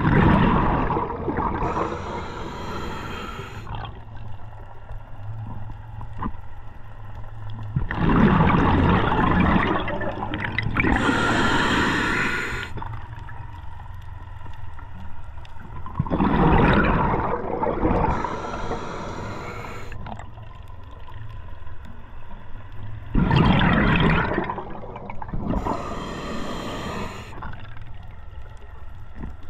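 Scuba diver breathing through a regulator underwater: a bubbling rush of exhaled air alternating with the higher hiss of the regulator on each inhale, four breaths about eight seconds apart.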